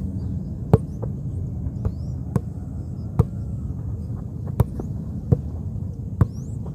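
A leather football struck again and again as two players keep it up between them with headers and touches: sharp thuds about once a second, some louder than others.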